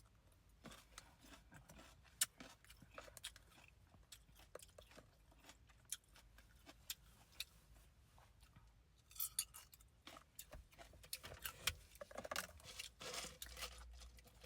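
A person chewing and crunching food close to the microphone, with scattered wet mouth clicks. The chewing gets busier in the last few seconds.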